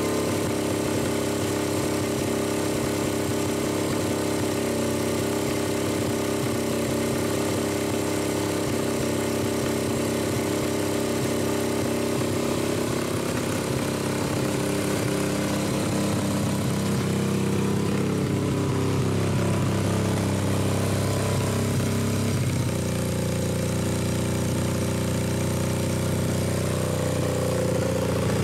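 Suzuki GS500 air-cooled parallel-twin engine idling steadily, being warmed up to operating temperature for a compression test. Its note shifts slightly about 22 seconds in.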